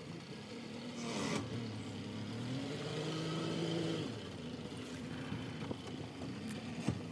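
A motorboat's engine running at low speed, its pitch rising about two and a half seconds in, holding, then settling back down about a second and a half later. A short knock near the end.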